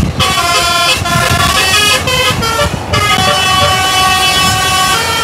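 Multi-tone basuri 'telolet' bus horn playing a tune of quick, changing notes, with short breaks just after the start and about two and a half seconds in, over a low engine rumble.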